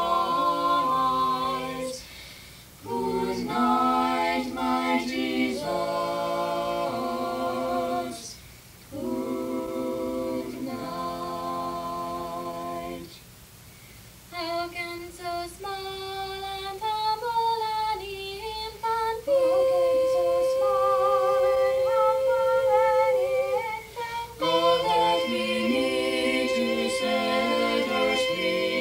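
Four-part a cappella singing by a mixed vocal quartet (soprano, alto, tenor and bass), in phrases with short pauses between them.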